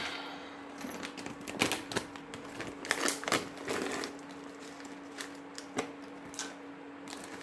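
Irregular clicks and light knocks of kitchen utensils and ingredients as they go into a pot for a herbal decoction, loudest between about one and a half and four seconds in, over a faint steady hum.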